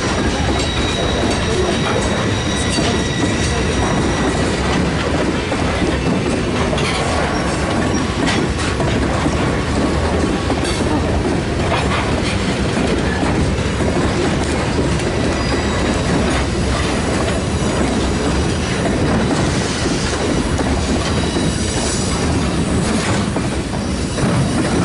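Freight train cars rolling past close by: a steady rumble of steel wheels on rail with scattered clicks over the rail joints. A faint, thin, high squeal from the wheels comes in the first few seconds.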